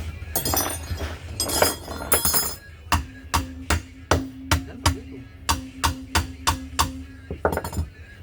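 A run of sharp metallic strikes, about three a second, with a steady ringing tone under them. It follows a few seconds of louder, rougher clattering and scraping.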